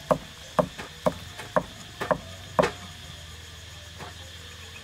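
Kitchen knife cutting the eyes out of a peeled pineapple: about nine sharp, crisp knocks of the blade in quick succession in the first two and a half seconds, then a quiet stretch with one faint tap.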